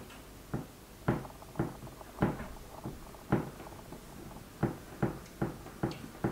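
Soft bread dough being kneaded by hand on a floured wooden board: about a dozen dull thumps and slaps as the dough is lifted and pressed or dropped back onto the board, with a short pause in the middle.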